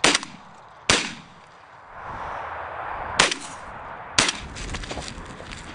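Four shotgun shots in two pairs. Two come about a second apart at the start, and two more about a second apart some three seconds in. Each crack is followed by a short fading echo.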